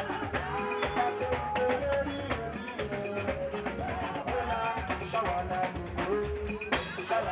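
Music with a steady drum beat and a held melody over it.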